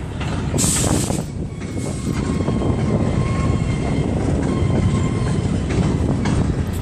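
Freight train of open-top gondola cars rolling past: a loud, steady low rumble with wheel clatter, and a brief high screech of wheels about a second in.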